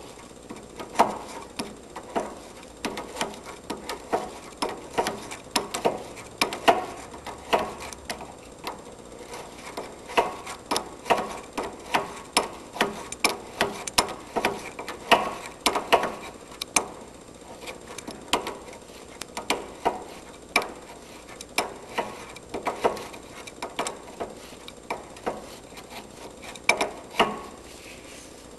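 Metal clicks and clanks of a wrench working a hydraulic quick-coupler fitting as it is tightened. The clicks come in short runs, a few a second, with brief pauses between strokes.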